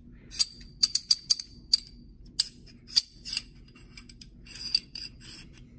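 A 1911 pistol's steel barrel and slide being handled during field stripping: about a dozen light, irregular metallic clicks and scrapes, each with a bright ring.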